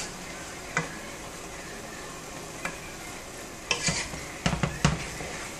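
Wooden spoon stirring chicken pieces in tomatillo sauce in a metal pot, knocking against the pot a few times, most of them in a cluster past the middle. Under it the sauce sizzles steadily as it fries.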